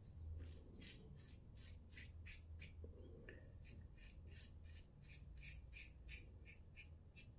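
Safety razor scraping stubble through shaving-soap lather in short, quick strokes, about three a second, with a brief pause about three seconds in. Faint.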